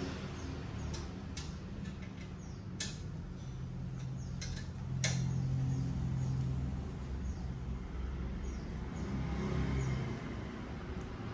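A few sharp metallic clicks and taps of a hand tool working the bolts of a steel scooter box bracket while it is being tightened, over a steady low hum.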